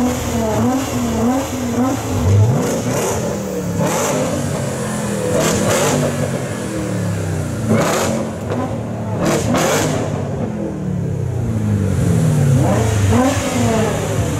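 A performance car's engine being revved: quick rising-and-falling blips at the start and again near the end, and longer revs that fall away in the middle. Several sharp bangs are heard between about four and ten seconds in.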